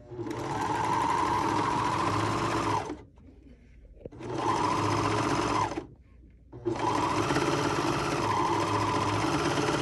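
Four-thread serger (overlocker) running at speed as it serges a dress side seam, in three runs of about three, two and three seconds with short pauses between.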